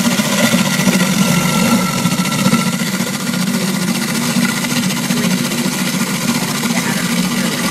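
Food processor motor running steadily with a constant hum, its blade churning chunks of frozen yogurt with a splash of half-and-half into frozen yogurt.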